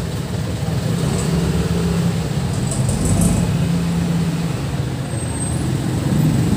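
A motor vehicle engine running steadily, its pitch wavering slightly, with a few light clicks about three seconds in.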